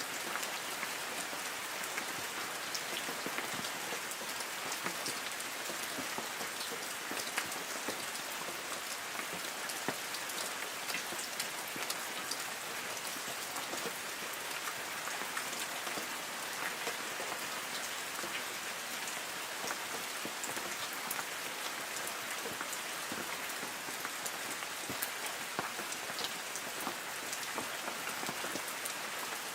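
Light rain falling on forest trees: a steady patter with many individual drops ticking on the leaves.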